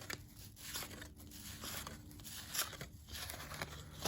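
Baseball cards being slid off a stack one after another: soft cardboard scrapes and rustles every half second or so, with one louder scrape a little past the middle.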